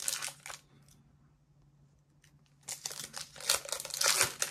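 Foil Pokémon booster-pack wrapper crinkling as it is handled and torn open. It stops about half a second in, then the crinkling starts again after about two seconds.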